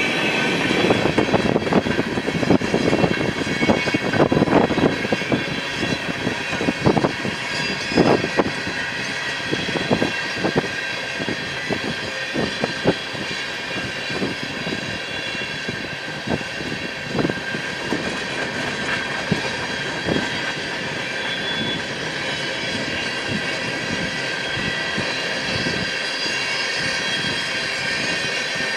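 Freight train rolling past, its wheels clicking irregularly over the rail joints, most often in the first half, under a steady high-pitched wheel squeal.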